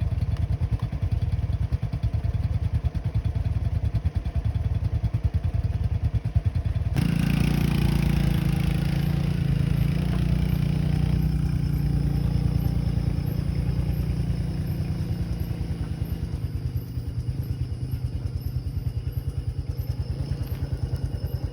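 Motorcycle engine running under load on a rough road, with some clatter. About a third of the way in it changes abruptly to a louder, higher-pitched run, then slowly settles back.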